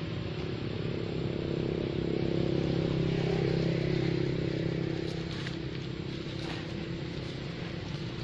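A motor vehicle's engine running with a steady drone, growing louder about two seconds in and fading again after about five seconds.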